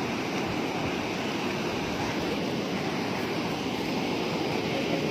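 Steady rush of water pouring through a sluice gate, a constant even noise with no breaks.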